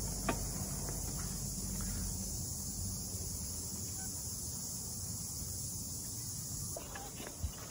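Steady, high-pitched shrill of an insect chorus in the forest canopy, with a low rumble beneath and a few faint knocks from walking on the suspended walkway.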